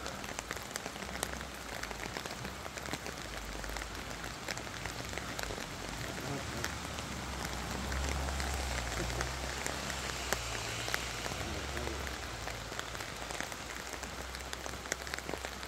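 Steady rain falling, with many individual drops ticking close by. A low rumble swells in the middle and then eases.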